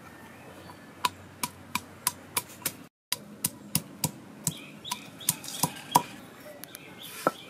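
Cylindrical hand stone pounding garlic cloves on a flat stone grinding slab: a run of sharp knocks, about three a second, as the cloves are crushed. The knocks cut out briefly about three seconds in, and a last one comes near the end.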